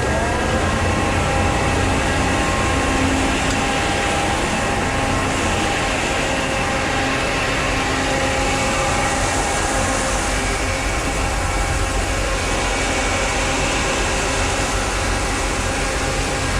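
Grain dryer starting up: the fan's rising whine levels off about half a second in, then the dryer runs steadily with several steady hum tones over a loud machine drone, alongside the grain elevator that is already running.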